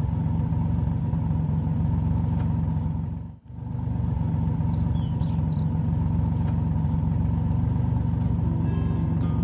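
Cartoon truck engine sound effect: a steady low running drone, with a brief drop about three and a half seconds in.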